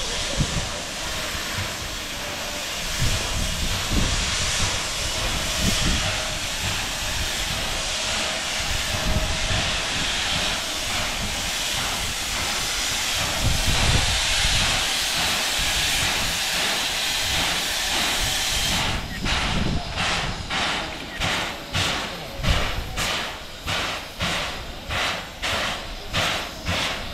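Steam locomotive made up as Thomas the Tank Engine hissing steam steadily. About 19 seconds in, regular exhaust chuffs start at about two beats a second.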